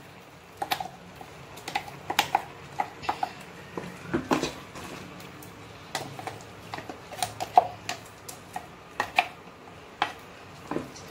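A spoon scraping and tapping against a mixer-grinder jar as ground masala paste is emptied into a pressure cooker: irregular light clicks and knocks, a few with a short metallic ring.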